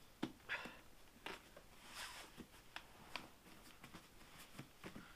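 Faint scattered clicks and rustles of hands handling a motorcycle helmet, working at the chin area and pressing on the shell.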